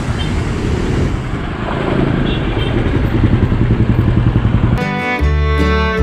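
Road noise from a moving car in traffic, with motorcycles close by. Near the end it cuts abruptly to background music with a violin.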